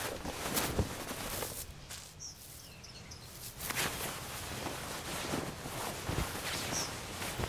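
Quiet outdoor ambience: a steady hiss with a few faint bird chirps a couple of seconds in and again near the end, and scattered soft knocks.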